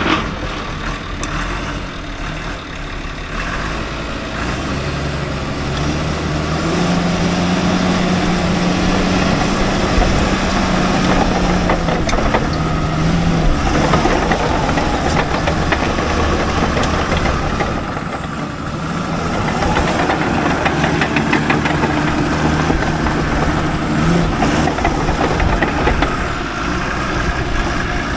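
Heavy-equipment diesel engine running, its speed rising and falling a few times.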